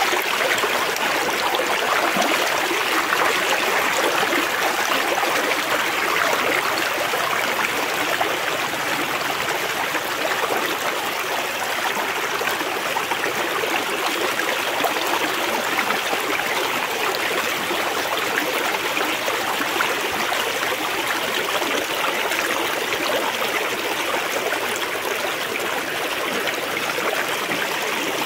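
A shallow river running and babbling over stones, a steady rush of water that eases slightly after the first several seconds.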